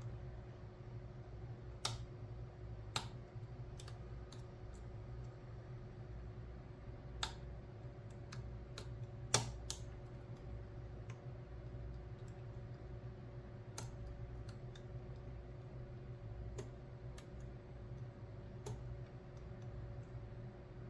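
Scattered small metallic clicks of a lock pick and tension wrench working the pins of a five-pin challenge lock, the loudest about nine seconds in, over a steady low hum.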